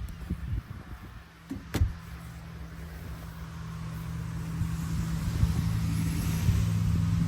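An engine running steadily and growing gradually louder over several seconds, with a single sharp click about two seconds in.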